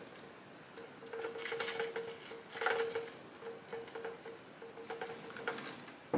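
A hand iron pushed back and forth over cotton quilt pieces on a wool pressing mat: soft scraping and fabric rustle in several strokes, with a faint steady hum underneath.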